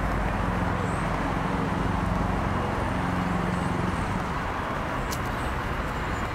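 Steady hiss of road traffic, with a vehicle engine's hum that fades about four seconds in.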